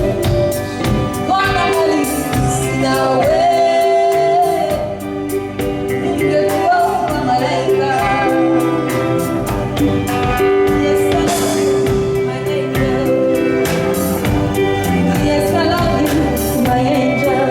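Live band playing a song at a sound check: a lead singer over sustained chords and a steady drum beat.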